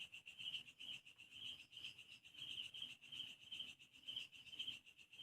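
Faint, steady high chirping of crickets, pulsing a couple of times a second: a night-time insect chorus.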